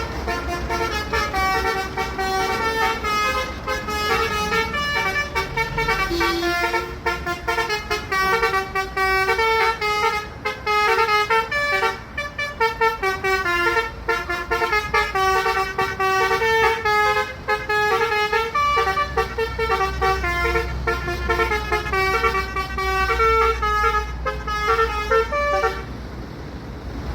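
Bus telolet horn module, a multi-tone musical horn, playing a fast melody of stepping notes that stops shortly before the end, over a low rumble.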